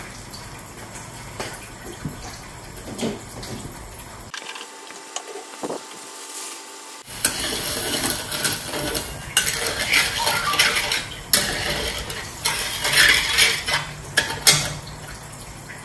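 Metal ladle stirring sugar syrup in an aluminium wok, scraping and clinking against the pan; the stirring is loudest from about halfway in, over a steady low hiss.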